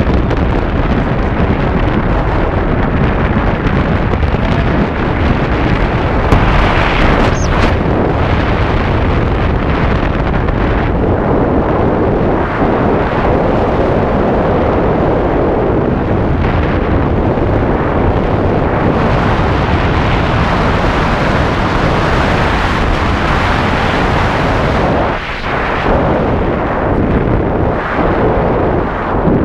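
Heavy wind rushing over the camera microphone during a tandem skydive: a loud, steady roar of air that barely changes.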